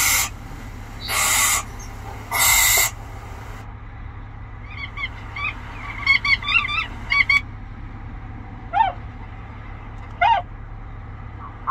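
Bird-call recordings played through a BMW X5's Logic 7 car stereo as the CD steps from track to track: three harsh screeches of a barn owl about a second apart, then a quick run of short high calls of bar-tailed godwits around the middle, and two short rising calls of Bewick's swan near the end.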